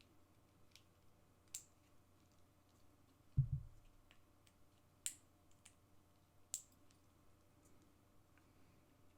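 Scattered sharp clicks of hand tools and 18650 cells being handled as leftover strip material is taken off the cells, with one low thump about three and a half seconds in.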